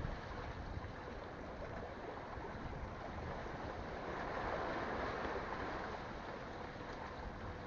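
Steady outdoor noise of wind and sea water, swelling a little about halfway through.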